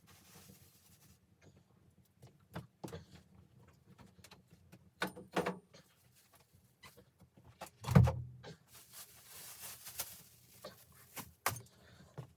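Scattered knocks and clunks, with one heavy thump about eight seconds in followed by a short stretch of rustling or scraping.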